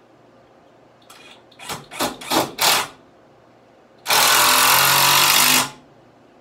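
Power drill driving a screw into a wooden shelf board: a few short trigger pulses as the screw starts, then one steady run of about a second and a half as it is driven home.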